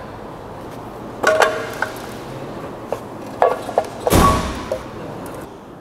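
Metal tools and engine parts clinking against each other in a workshop: a ringing clink about a second in, a lighter one a couple of seconds later, and a louder sharp clank with a short ring after it about four seconds in.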